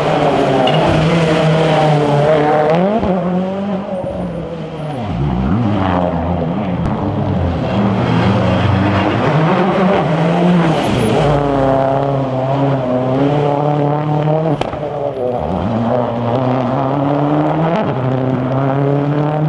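Rally car engine at high revs, its pitch climbing and dropping back again and again as it runs up through the gears and lifts off between them.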